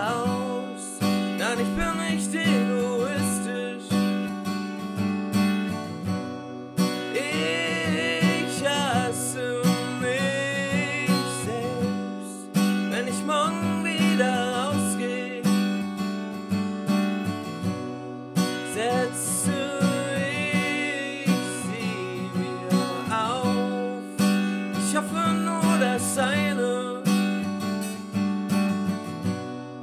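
Acoustic guitar music without lyrics: strummed chords with a gliding melody line on top, an instrumental passage of a singer-songwriter song.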